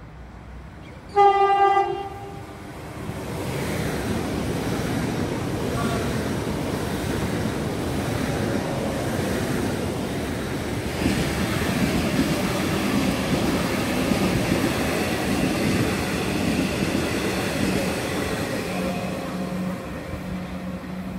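Melbourne Metro Comeng electric train sounding one short horn blast about a second in, then running along the platform with a steady rumble of wheels on rail, a steady hum coming in near the end.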